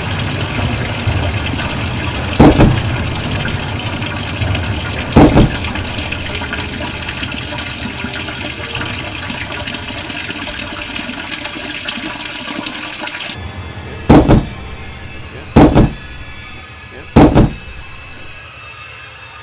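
Tap running water into a plugged sink, a steady rush that cuts off sharply about two-thirds of the way through. Heavy thuds of someone forcing a door: two during the running water, then three about a second and a half apart near the end.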